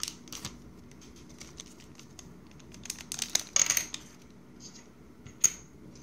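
A plastic bag crinkling and rustling as small electronic parts are unwrapped by hand, with scattered light clicks. The rustling is thickest about three seconds in, and a single sharp click comes near the end.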